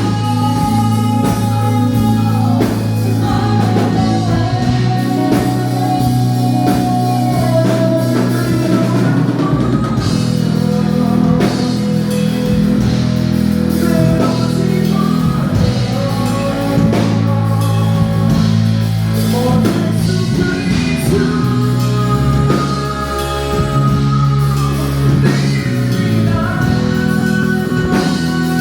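A live rock band playing a song with a singer: drum kit, guitar and bass under long held vocal lines, as heard at a sound check.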